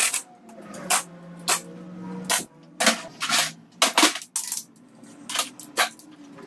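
Sharp metallic clinks and knocks of hand tools, sockets and bolts against metal, coming irregularly about once or twice a second while a gearbox is being bolted to an engine block.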